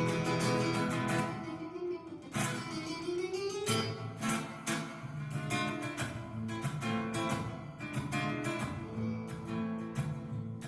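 Acoustic guitar music, strummed and plucked chords played as a song, with a short upward pitch slide a few seconds in.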